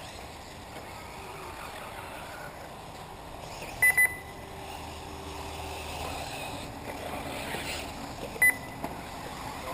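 Short electronic beeps at one fixed pitch, a quick couple about four seconds in and a single one about eight and a half seconds in, typical of an RC race lap-timing system registering cars crossing the line. Under them runs a faint, steady sound of 1/8-scale electric buggies on the track.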